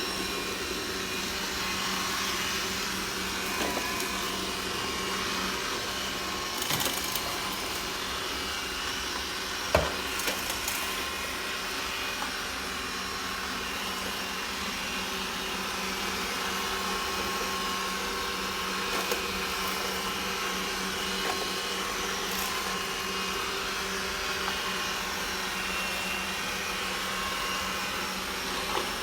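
Roborock S6 Pure robot vacuum cleaner running steadily, its suction motor and side brush humming and whirring, with a few brief knocks, the sharpest about ten seconds in.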